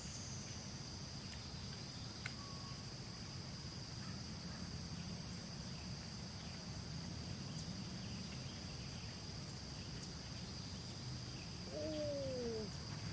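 Faint insect chorus: one unbroken high-pitched trill holding a single pitch throughout. About twelve seconds in, a short call falls in pitch over under a second.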